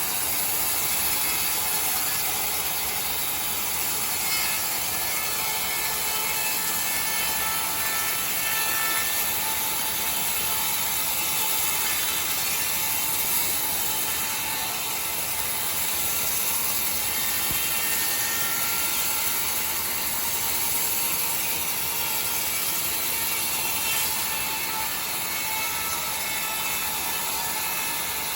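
Sawmill saw running steadily through timber: a loud, unbroken hiss with a faint whine.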